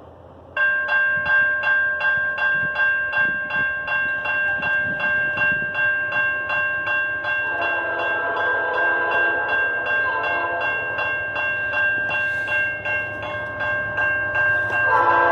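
Diesel locomotive air horns blowing a long, steady multi-note chord that starts about half a second in. Around seven and a half seconds in a second, lower-pitched horn chord joins it. A quick regular clicking, about three times a second, runs underneath.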